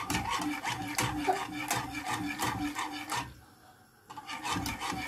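A metal wire whisk scraping and swishing round a coated metal saucepan, stirring milk thickened with cornstarch for a cream filling. The strokes come in a steady rhythm, stop briefly about three seconds in, then start again.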